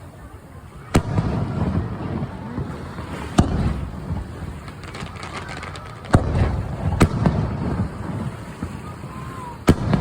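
Fireworks shells bursting: five sharp bangs a second or few apart, each followed by a low rumble.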